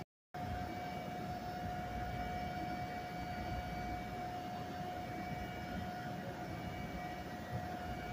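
Steady electrical whine with a low rumble from a New Jersey Transit Arrow III electric multiple-unit train at the platform, one even held tone that does not change. It begins after a brief dropout right at the start.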